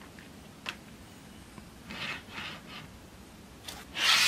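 A small model railway wagon being set onto track by hand: a light click, then a few short rubbing scrapes as its wheels meet the rails, and another click. Near the end a loud, steady hiss starts suddenly.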